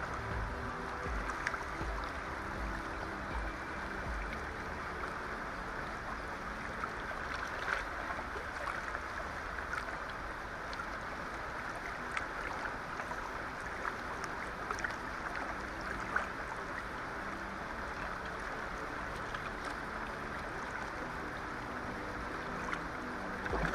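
Steady rushing of a fast river, with low wind rumble on the microphone and a few faint ticks.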